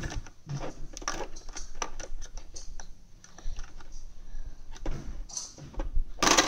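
Irregular light clicks and taps of plastic toys being handled, with a louder knock shortly before the end.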